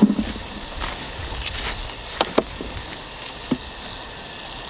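Plums being picked by hand from the tree: leaves and branches rustle, with several short, sharp snaps and clicks as fruit is pulled off.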